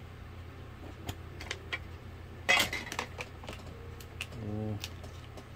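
Scattered light clicks and small clatters of objects being handled, with one louder, noisier burst about two and a half seconds in.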